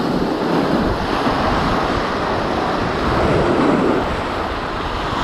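Sea waves surging and breaking against the shore rocks, a steady rushing wash, with wind buffeting the microphone.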